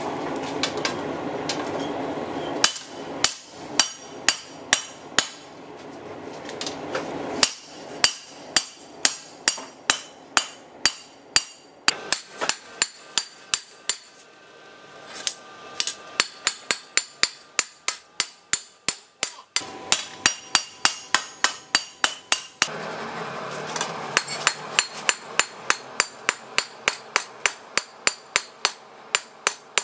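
Hand hammer striking red-hot blade steel on an anvil in a steady rhythm of two to three blows a second, the anvil ringing after each blow, with two short pauses. A steady rushing noise sits under the first few seconds and the last few.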